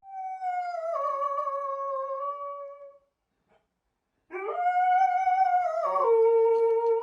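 A dog howling: two long howls, the first sliding slowly down in pitch for about three seconds; after a short pause a second, louder howl starts, rises, then drops to a lower held note.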